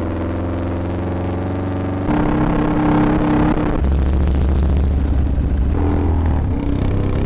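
Motorcycle engines running in a string of short clips, the engine note changing abruptly about two seconds in, again near four seconds and near six seconds.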